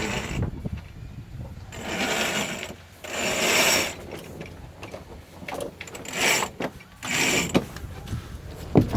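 Sailboat rigging working: rope running through ratchet blocks and sail noise, in four short noisy bursts over a low rumble.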